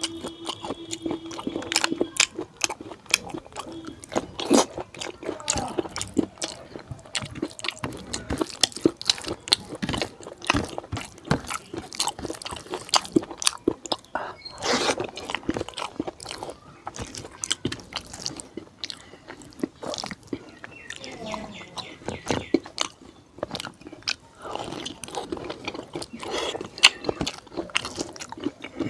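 Close-miked chewing of fatty pork curry with rice: a dense, irregular run of wet smacks, clicks and crunches.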